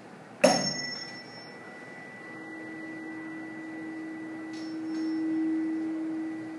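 A tuning fork is struck with a sharp knock about half a second in, then rings with a steady hum and a faint high overtone. Held over the top of a water-filled resonance tube while the water level is moved, the hum swells louder a couple of seconds before the end as the air column comes into resonance, then eases off.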